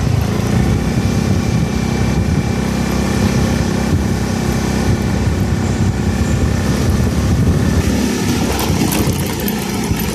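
Motorcycle engine running steadily while riding, with a dense low rumble throughout.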